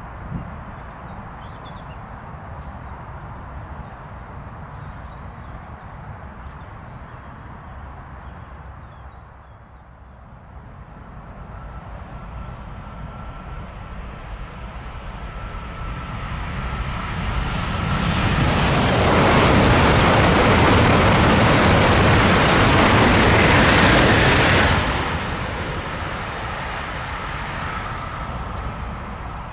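A high-speed electric passenger train passing at speed: a rushing noise that builds over several seconds, holds at its loudest for about six seconds with a steady whine through it, then drops off suddenly and fades.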